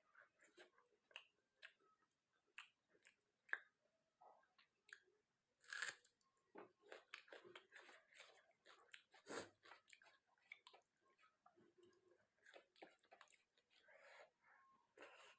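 Close-up mouth sounds of someone chewing and biting chicken and rice: many small irregular wet clicks, with a few louder crunches.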